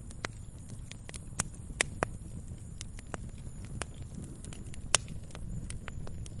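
Campfire of burning wood crackling: irregular sharp pops and snaps, a few louder ones about two seconds in and near the end, over a steady low rumble of the flames.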